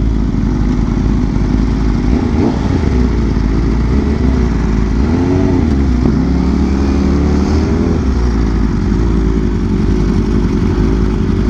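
BMW M1000RR's inline-four engine running through a full titanium SC-Project exhaust while riding, its pitch rising and falling with the throttle.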